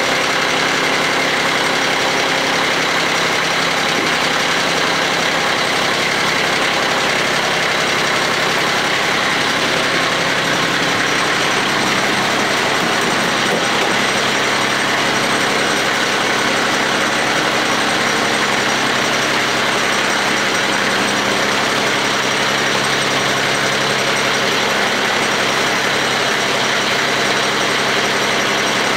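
Kioti CS2220 sub-compact tractor's three-cylinder diesel engine running steadily, freshly cold-started at −22 °C.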